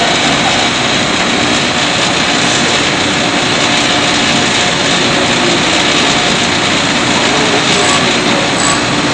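Grinder running steadily as it grinds steel screwdriver stock into a flat blade, a loud even grinding hiss. Faint short high beeps repeat near the end.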